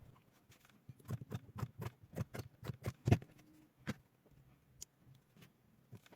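Quick, irregular light clicks and taps of small parts being handled: nickel strips and a plastic cell holder being fitted while wiring a lithium drill battery pack. The taps are densest about one to four seconds in and resume near the end.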